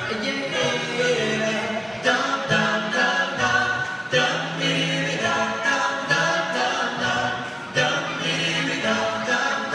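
An a cappella vocal group singing doo-wop in close harmony: several voices hold chords together and change notes every second or two, with no instruments.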